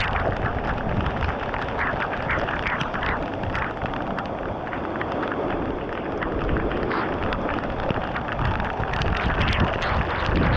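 Waterfall pouring close to the microphone: a loud, steady rush of falling water, with many small sharp ticks from spray drops hitting the camera.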